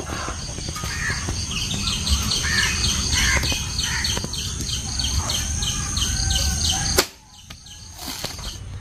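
Birds calling, with several chirps and a run of short repeated notes at about three a second, over a low steady rumble. The rumble cuts off suddenly about seven seconds in.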